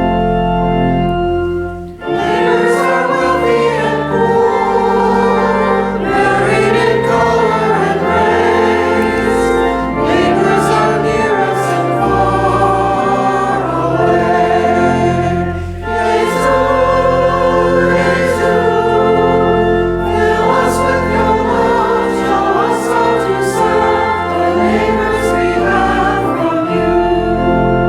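Voices singing a hymn in chorus, accompanied by organ with long held chords. The music dips briefly about two seconds in and again around sixteen seconds, between phrases.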